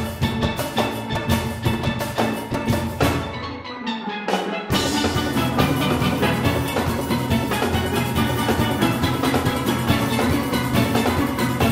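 Steel orchestra playing: many steelpans with a drum-kit rhythm section. About three seconds in, the drums and bass pans drop out for a short break, leaving the mid-range pans, and near five seconds the full band comes back in at once.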